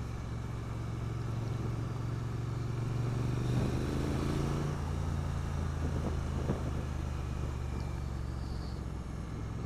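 Triumph Street Twin 900's parallel-twin engine running steadily while the bike is ridden along a road. Its note drops lower about halfway through.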